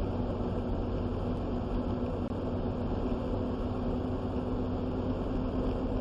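Steady engine and road noise inside a moving vehicle's cab: an even drone with a low hum underneath.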